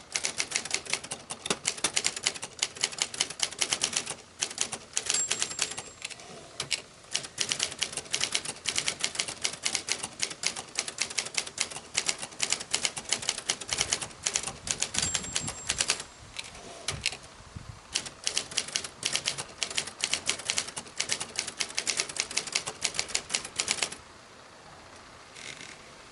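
Manual typing on a 1980 Brother Accord 10 ultraportable typewriter: rapid runs of type bars striking the platen, broken by short pauses. The typing stops near the end.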